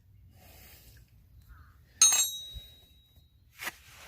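A sharp metallic clank about halfway through, one struck piece of metal ringing on with a high tone that dies away over about a second and a half, then a shorter knock near the end.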